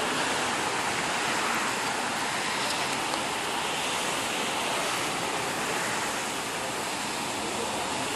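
Rain pouring down in a steady, even hiss.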